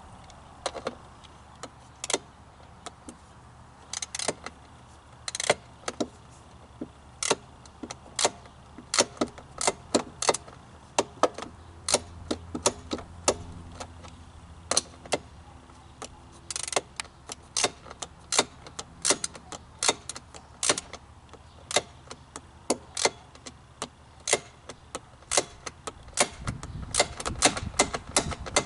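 Sharp metallic clicks and taps of hand tools and metal parts being worked on a lawn mower, irregularly spaced, with quick clusters near the end.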